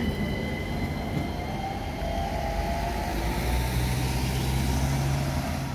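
Light-rail tram moving along the platform, its electric drive giving a whine that rises in pitch about a second and a half in, over rolling noise and a low hum that sets in near the middle.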